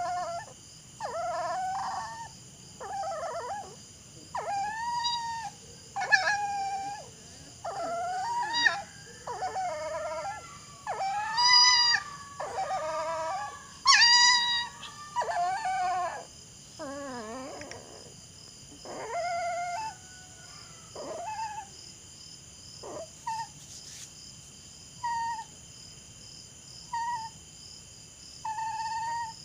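A dog giving a long run of whining, howling calls, about one a second, each bending up and down in pitch. In the second half the calls turn shorter and further apart.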